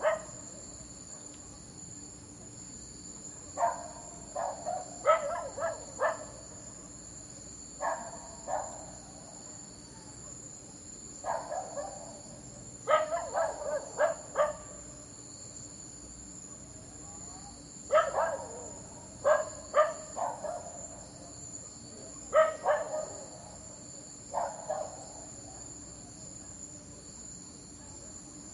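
A dog barking in short bouts of two to five barks every few seconds, over a steady high-pitched drone.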